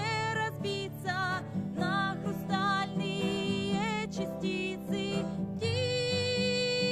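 A song sung to guitar accompaniment: a singing voice with vibrato over guitar chords. Near the end the voice holds one long note.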